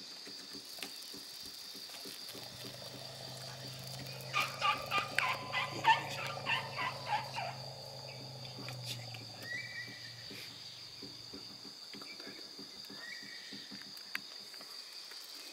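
Forest ambience at dusk: a steady high insect trill, and an animal calling in a quick run of about a dozen notes, roughly three a second, over a low steady hum that stops about two-thirds of the way through. A few short chirps follow.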